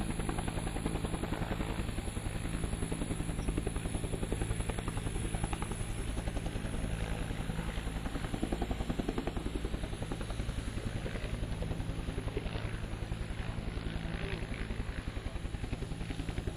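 An aircraft running close by: a steady, rapid throbbing over a low drone.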